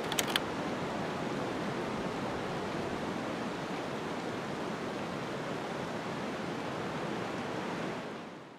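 Steady rushing of a river flowing past, with a few light clicks of gear being handled just after the start; the sound fades out just before the end.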